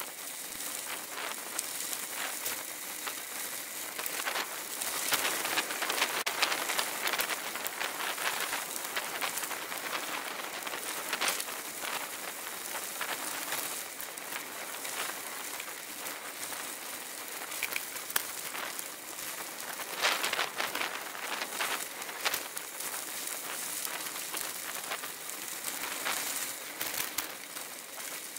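Bicycle tyres crunching and crackling over a loose gravel road, picked up by a bike-mounted camera as a dense patter of small clicks. It gets louder around five to seven seconds in and again about twenty seconds in.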